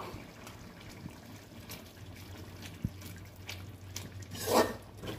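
Thick curry gravy simmering in a steel kadai, with scattered small bubbling pops. About four seconds in, a metal spoon stirs and scrapes through it, which is the loudest sound.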